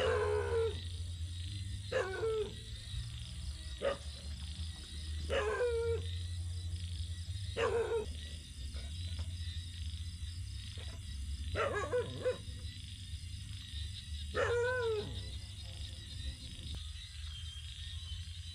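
A dog barking and yelping, about seven short calls a couple of seconds apart, each falling in pitch, over a steady high drone of insects and a low hum.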